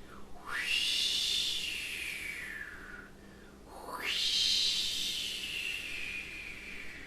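Two long, breathy whistles, one after the other, each sweeping up fast and then gliding slowly down in pitch.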